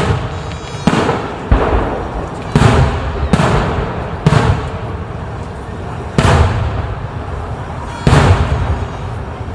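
Aerial fireworks shells bursting overhead: about seven loud booms at irregular intervals of roughly one to two seconds, each trailing off in a rumbling echo.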